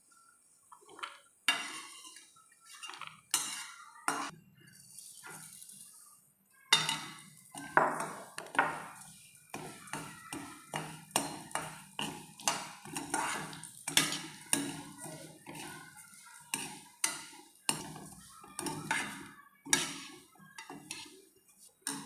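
Steel spatula scraping and knocking against a steel kadhai as dry vermicelli is stirred and roasted. The strokes are scattered at first and then come steadily, one or two a second, from about a third of the way in.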